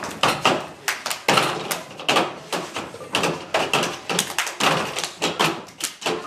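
Hand claps and knocks on a folding tabletop in a quick rhythm, a table-percussion routine of the cup-game kind played by several people together.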